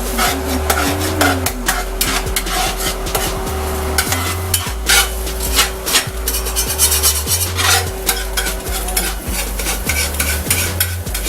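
A utensil stirring and scraping eggs around a hot frying pan, with many quick clicks of the utensil on the pan over the food's steady sizzle.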